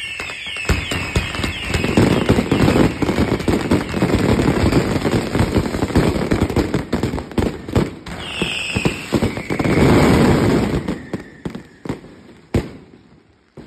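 Fireworks going off in a dense, rapid barrage of cracks and bangs, with a brief high whistle about eight seconds in. The barrage thins out and ends with a last sharp bang near the end.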